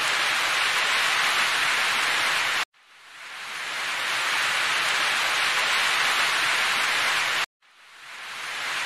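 Steady hissing noise like static that cuts off abruptly twice and fades back in over a second or so each time: a looped noise track.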